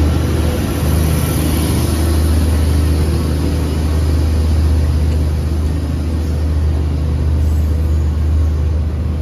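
A diesel commuter train rolling slowly past along the platform, its engines giving a steady deep drone under a rushing noise.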